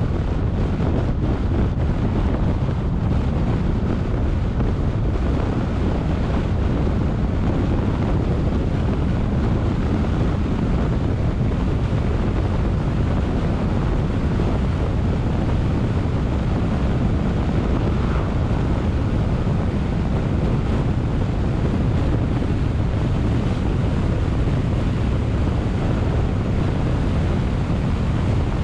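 Steady wind rushing over a car-mounted camera's microphone, with tyre and road noise, as the car drives at a constant pace.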